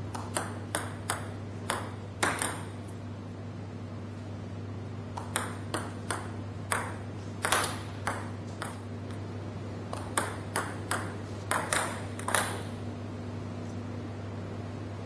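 Table tennis ball clicking off racket and table in three quick runs of sharp ticks, one run per reverse short serve with side-topspin. A steady low hum lies underneath.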